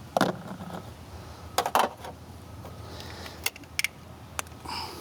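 Scattered sharp clicks and knocks of hands working on plastic parts and wiring in a car's engine bay: about six in all, a pair around a second and a half in and a few more near the end.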